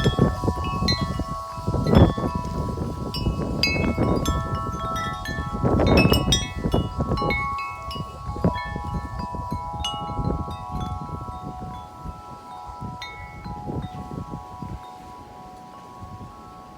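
Corinthian Bells 36-inch wind chime ringing in strong, gusty wind: many overlapping strikes with long ringing tones, busiest in the first half and thinning out near the end. Wind gusts buffet the microphone with low rumbles.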